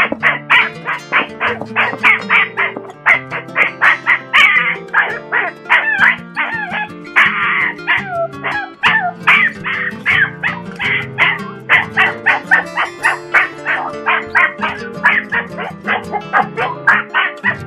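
West Highland White Terrier yipping rapidly and without a break, about four high yips a second, with a few rising and falling whines near the middle: crying at being left alone in its crate. Music with held low notes plays underneath.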